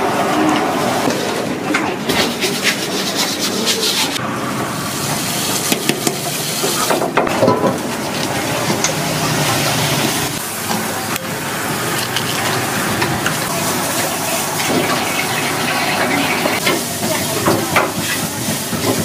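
Continuous busy street-kitchen noise: running and splashing water with a steady hiss, broken by scattered clinks and knocks of utensils.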